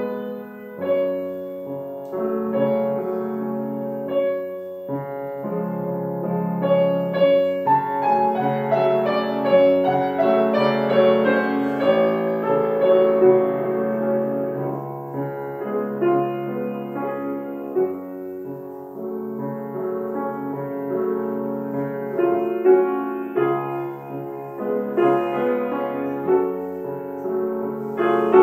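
Grand piano played solo: a classical piece with many sustained, overlapping notes, growing louder through the middle and softer a little later.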